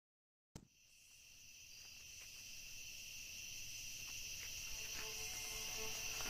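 Crickets chirping steadily as a night ambience, fading in from dead silence about half a second in and growing gradually louder.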